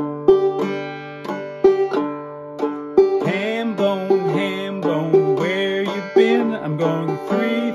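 Five-string banjo played clawhammer style in an alternate-frailing pattern: two brushed notes on the third string, the thumb on the fifth string, two on the fourth string, the thumb again, in an even repeating rhythm over a ringing high drone. About three seconds in, a voice joins in without words.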